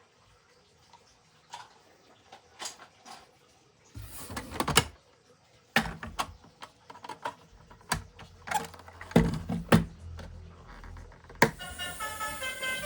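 Plastic toy vehicles being handled: a string of sharp clicks and knocks, with a low hum under the later ones. Background music comes in near the end.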